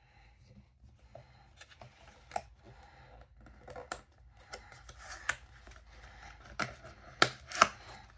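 Cardboard blind box and its contents being handled and opened by hand: scattered taps, clicks and rustles, with two sharper clicks near the end.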